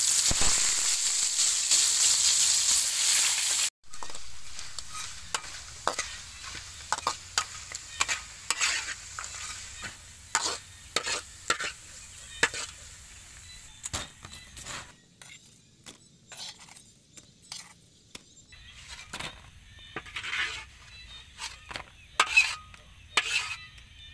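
Raw potato slices sizzling loudly in hot oil in a wok, cut off abruptly a few seconds in. Then a spatula scraping and knocking against the wok as the frying chips are stirred, over a fainter sizzle.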